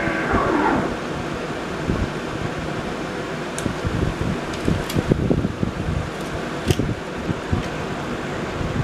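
A steady mechanical whir, with a run of light clicks and knocks in the middle.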